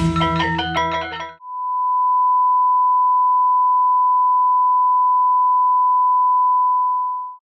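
An intro music track with drums and ringing mallet notes cuts off about a second and a half in. A steady 1 kHz sine test tone then fades in, holds for about six seconds and stops just before the end.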